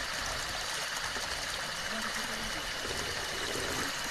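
Water of a small spring waterfall running down a rock channel: a steady trickling rush.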